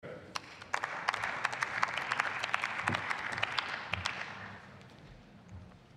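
Applause from members of the Bundestag in the plenary hall: scattered clapping that builds within the first second, holds for a few seconds, then thins out and fades away about five seconds in.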